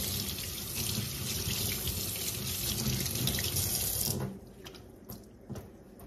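Kitchen faucet running into a stainless steel sink as hands are rinsed under the stream. The water shuts off suddenly about four seconds in, followed by a few light clicks.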